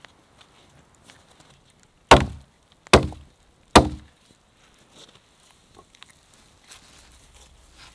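Axe chopping into a wooden pole lying on the ground: three hard strikes a little under a second apart.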